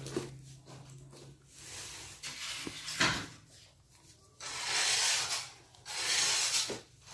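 Rubbing and scraping noises come in swells of about a second each, with a sharp knock about three seconds in. A low hum sounds for the first second and a half.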